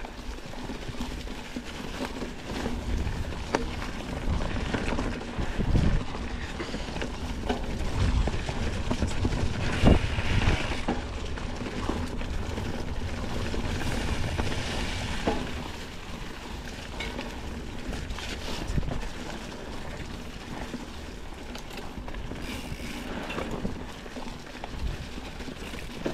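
Mountain bike riding over a leaf-covered dirt trail: a steady rolling noise from the tyres and drivetrain, with scattered knocks and rattles over bumps. The loudest knock comes about 10 seconds in.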